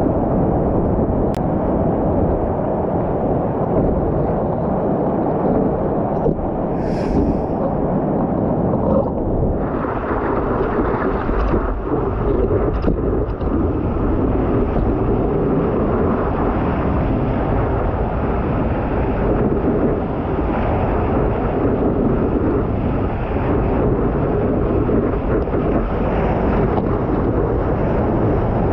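Rushing whitewater and wind buffeting a board-mounted camera's microphone as a stand-up paddleboard rides a breaking wave: a loud, steady roar of water and wind.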